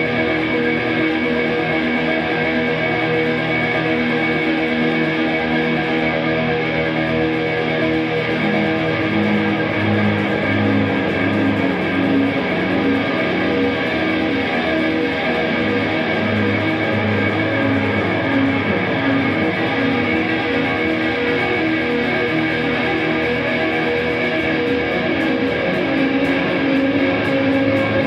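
Background music led by electric guitar, running steadily at an even level.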